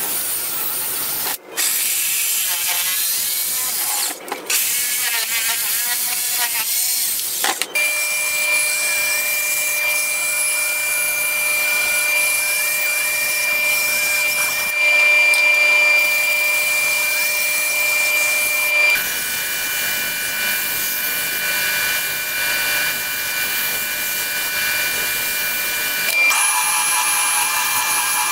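Woodworking power tools working plywood in quick succession: a drill boring into the board, then a bandsaw cutting it with a steady whine, and near the end a Triton oscillating spindle sander sanding the edge of the disc.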